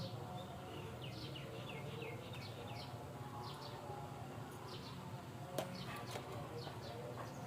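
Birds chirping in short, quick, falling chirps repeated again and again, over a low steady hum, with one sharp click a little past halfway.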